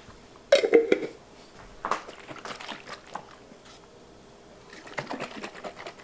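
Clatter and clicks from handling the glass mason jar and its lid on the counter, then warm herbal tea sloshing inside as the half-gallon jar is tipped and shaken to mix in the honey.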